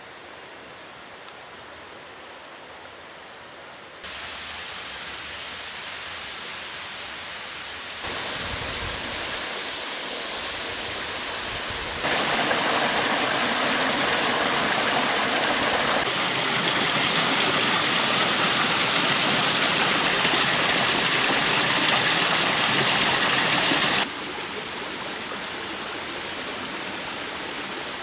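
Rushing water of a rocky mountain stream and waterfall, a steady hiss with no distinct events. It grows louder in several sudden steps, is loudest through the middle, and drops back a few seconds before the end.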